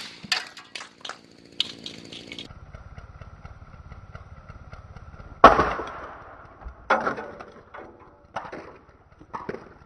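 Bat striking a plastic remote-control car. There is one loud crack with a short ring about halfway through, and several lighter sharp knocks and clatters before and after it as plastic parts break loose.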